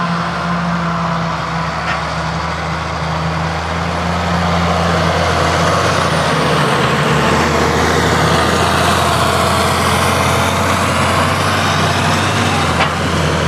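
Claas Jaguar 870 forage harvester chopping grass at work with a Valtra tractor running alongside: a loud, steady engine drone under a hiss of crop being blown through the spout. A high whine dips in pitch and rises again in the middle, and the sound grows a little louder about four seconds in.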